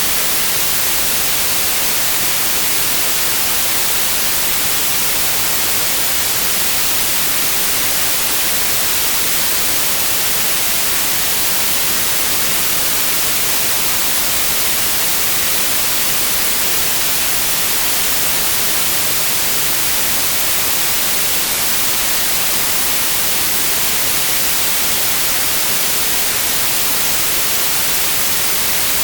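Steady white noise: an even, unchanging hiss with no tones or events.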